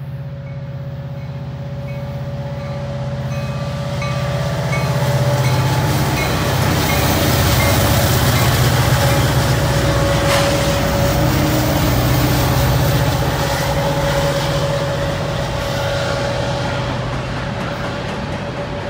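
Union Pacific diesel freight locomotives passing close by under power, engines running loud with a steady whine, then loaded freight cars rolling by on the rails. A single sharp knock sounds about halfway through.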